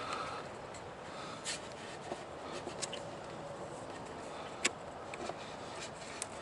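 A few light, sharp clicks and taps of small parts being handled while a dash USB port and its lock nut are fitted by hand, over a steady hiss.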